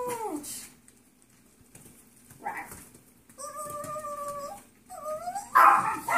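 Yorkshire terrier puppies whining: a falling whimper at the start, a held whine of about a second in the middle and a short rising-and-falling whine, then a louder, harsh bark near the end.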